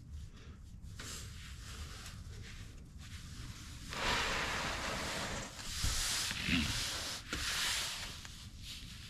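Rubbing and rustling handling noise, much louder for about four seconds in the second half.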